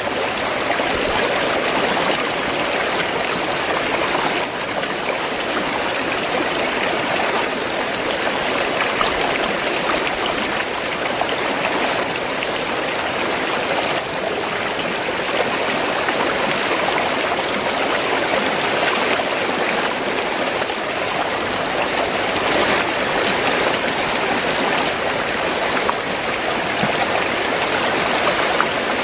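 Fast-flowing stream of water gurgling and rushing steadily.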